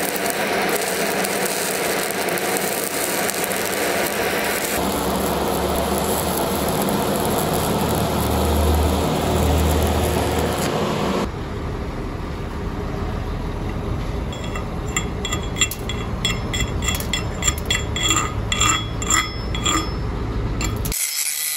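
Stick (shielded metal arc) welding, the arc crackling and hissing steadily for about the first half. It is followed by a run of light, irregular metallic clinks.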